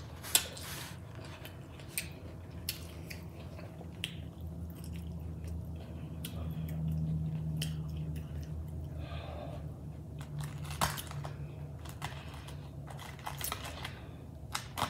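Close-up chewing of a lettuce-wrapped burger, with crisp lettuce crunch and scattered wet mouth clicks and smacks. A low steady hum runs underneath.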